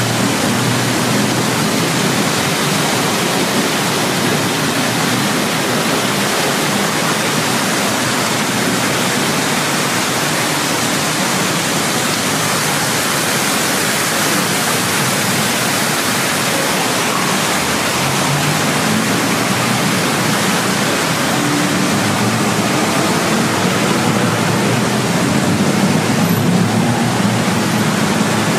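Steady rushing of water falling down a wall fountain into its pool, an even hiss-like wash with no breaks.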